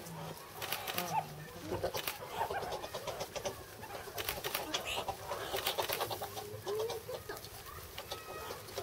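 A group of meerkats fighting: rapid clicking chatter mixed with short squeaky calls that slide up and down in pitch, over the scuffle of the tussle.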